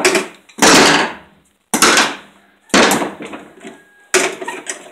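Metal hand tools (sockets, wrenches, pliers) clanking and rattling as they are dug out of and dropped in a metal ammo can, in four loud clattering crashes about a second apart.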